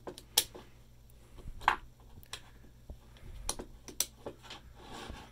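Scattered small clicks and taps from a Chicago division Yale padlock being worked with a newly cut key, with two sharper clicks about half a second and a second and a half in.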